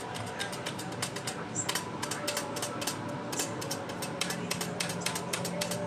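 Computer keyboard being typed on quickly: a fast, irregular run of key clicks, several a second.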